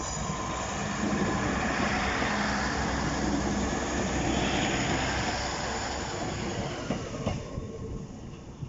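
Northern Class 150 Sprinter diesel multiple unit passing close by, its underfloor diesel engine running and its wheels rolling on the rails. The sound fades as the train draws away near the end.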